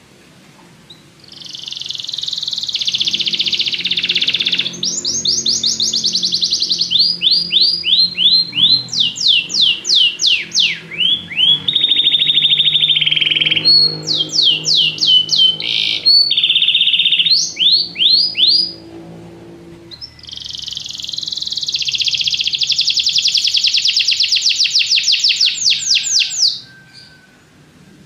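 Domestic canary singing: long runs of rapid rolling trills and quick down-sweeping notes, a break of a second or two about two-thirds through, then a last long trill that stops shortly before the end.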